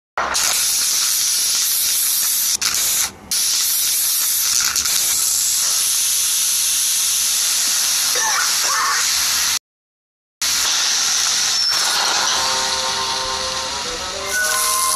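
A loud, steady hiss, briefly dropping out about two thirds of the way through. Near the end a melody of held, stepping notes begins under the hiss.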